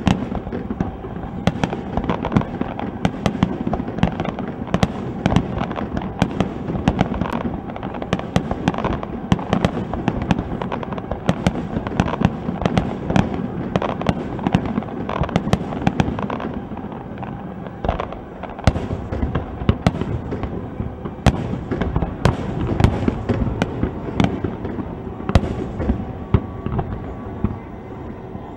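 Aerial fireworks going off in a rapid, continuous barrage of bangs and crackles. The barrage eases near the end.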